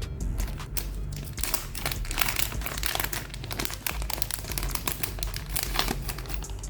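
Packaging crinkling and rustling as it is handled, a dense run of quick crackles.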